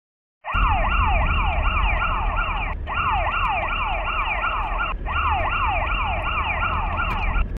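Emergency-vehicle siren in a fast yelp, its pitch sweeping down over and over about three or four times a second, with a low road rumble beneath, heard from inside a car. The siren cuts out briefly twice.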